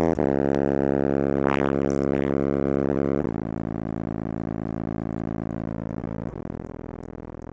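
10-inch Mordaunt-Short subwoofer on 200 W, playing a bass test track in a car cabin: sustained deep bass tones that step lower twice, each step quieter. On the lowest tones the sub falls short, it can't hit that low one.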